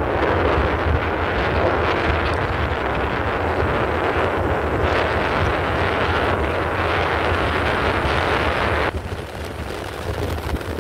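Truck on the move, heard from the cab: wind and road noise rushing over the steady low drone of the engine. The rushing drops away sharply near the end, leaving the engine drone.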